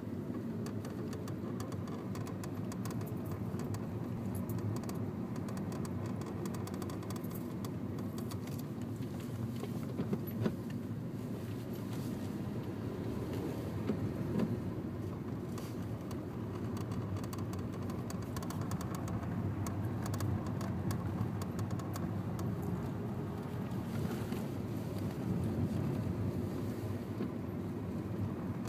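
Honda New Civic LXL car running, a steady low drone with a few faint clicks, as the car's clutch noise is demonstrated.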